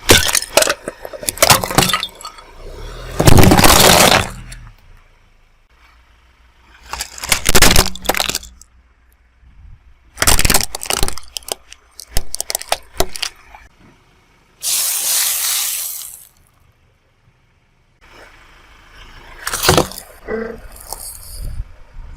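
A run of separate crushing events: objects cracking and crunching under a car tyre in clusters of sharp snaps, with a heavy crush about three seconds in. A hissing rush lasts just over a second around the middle.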